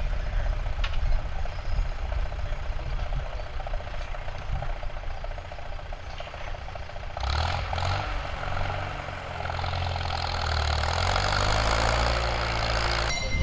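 Vintage tractor engines running outdoors. About seven seconds in, a louder engine comes close, its pitch shifting, and the sound cuts off abruptly near the end.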